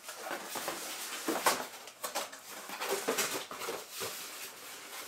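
Cardboard box and lid being handled: rustling and scraping cardboard, with a sharp knock about one and a half seconds in.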